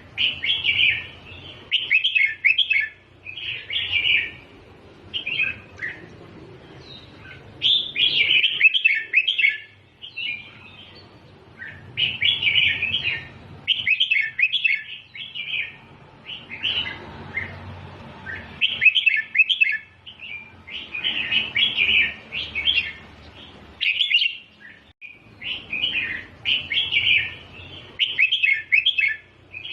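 Red-whiskered bulbul singing: short, bright, warbled phrases repeated over and over with brief pauses between them. This is the 'double' (เบิ้ล) song style that is used to tutor young bulbuls.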